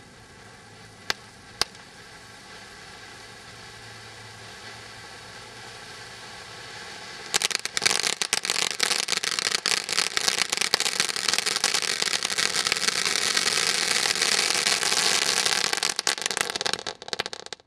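Phoenix Rising gold display fountain firework burning: a steady hiss of spraying sparks with two sharp cracks about a second in. About seven seconds in, a loud, dense crackling sets in and runs until it cuts off just before the end as the fountain burns out.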